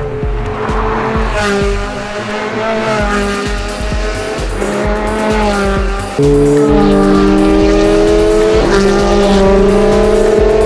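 Ferrari V8 engines revving hard as the cars accelerate, the pitch climbing and falling with the gears. They get much louder about six seconds in and rise steadily near the end.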